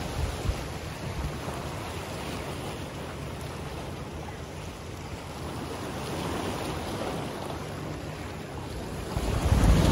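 Small sea waves washing against a rocky shore, with wind rumbling on the microphone; a louder rush of surf and wind comes near the end.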